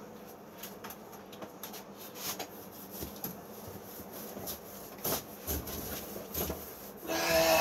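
Paintbrush rubbing against a wall in uneven strokes, with scattered light knocks. Near the end comes a brief, louder sound with a steady pitch.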